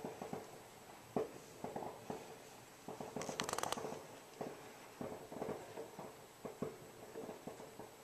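Faint firecrackers popping at irregular intervals, with a rapid string of cracks about three seconds in.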